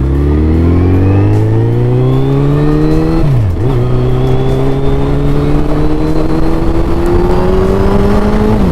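Suzuki Hayabusa's inline-four engine accelerating hard, its pitch climbing steadily. The revs drop sharply for an upshift about three and a half seconds in, then climb again. A second shift comes right at the end.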